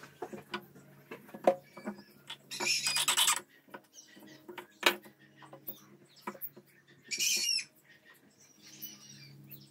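Pieces of scrap wood handled and set down on a wooden tabletop: scattered knocks and clacks, with two short high-pitched rasping bursts, about three seconds in and again about seven seconds in.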